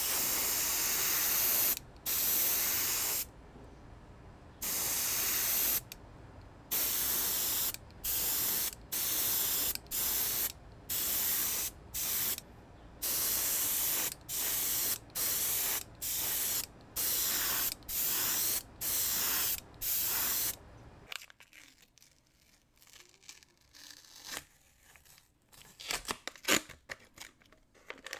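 Airbrush spraying paint in more than a dozen short hissing bursts, each about half a second to a second and a half long with brief pauses between, stopping about 21 seconds in. Near the end, light crinkling of masking tape and paper being peeled.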